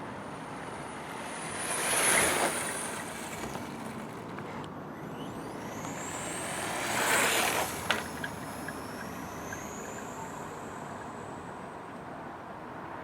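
Brushless 5600Kv electric motor of an HPI Sprint 2 Flux RC car whining as the car speeds past twice, about two seconds in and again about seven seconds in, its high whine falling in pitch as it goes by. Fainter rising whines in between as it speeds up again.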